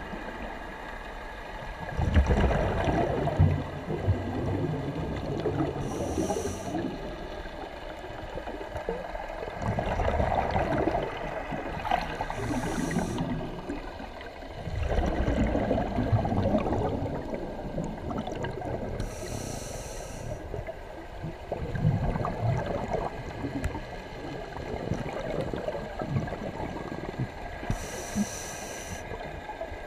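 Scuba diver breathing through a regulator underwater: a short hiss on each inhalation and a longer gurgling rush of exhaust bubbles on each exhalation, repeating every several seconds.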